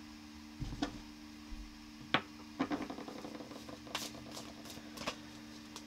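Tarot cards being shuffled and handled: an irregular run of soft card clicks and riffles, the sharpest about two seconds in, over a faint steady hum.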